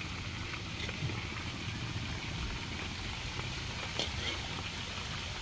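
Carp frying in hot oil in a wok: a steady faint sizzle with a few small pops, over a steady low rumble.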